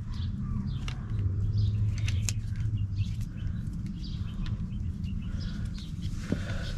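Scattered small clicks and taps of tools and parts being handled during wiring work. Underneath is a steady low rumble, with birds chirping.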